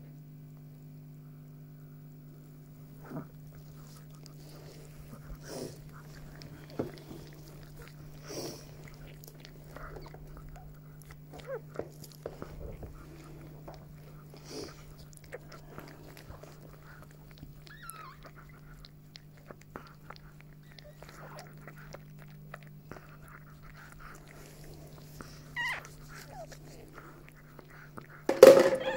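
Scattered wet smacks and clicks of a chihuahua mother licking and chewing after whelping, with rustling of bedding over a steady low hum; a brief loud noise near the end.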